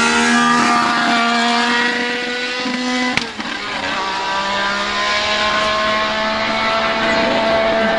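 Renault RS10's 1.5-litre twin-turbo Gordini-Renault V6 running at high revs as the car accelerates past. There is a sharp click and brief drop about three seconds in, after which the engine note climbs steadily.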